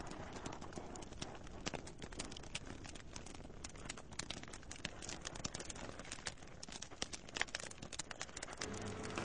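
Faint rustling of a cloth sheet, with light irregular clicks and taps from puppets being handled.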